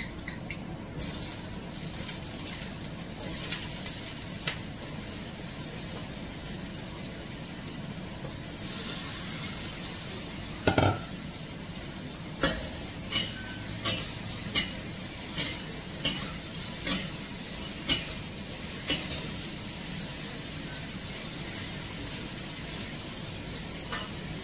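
Sliced fresh mushrooms sizzling in a steel wok over a gas flame, stir-fried with a metal spatula. The sizzle grows about a third of the way in, and through the middle the spatula scrapes and clanks against the wok about once a second.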